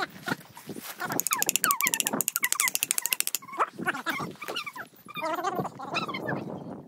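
Short, whining animal calls that rise and fall in pitch, with a fast run of clicks from about one to three seconds in.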